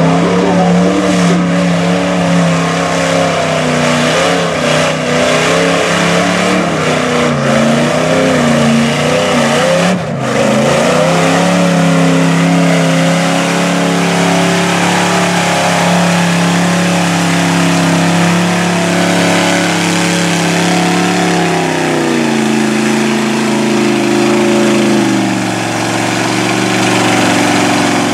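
Square-body GMC pickup's engine revving hard through a mud bog pit, its pitch rising and falling with the throttle. It is held at high revs for several seconds, then drops about two-thirds of the way through and settles lower as the truck sits stuck in the mud.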